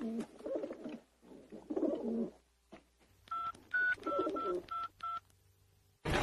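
Phone keypad beeps as a number is dialled: six short electronic beeps about a third of a second apart, starting about three seconds in.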